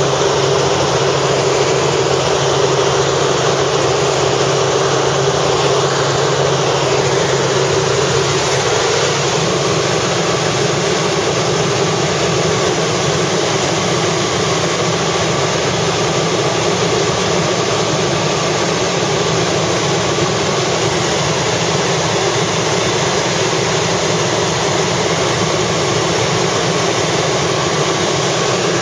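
Helicopter in flight heard from inside the cabin: steady, loud engine and rotor noise. A low hum under it fades out about nine seconds in.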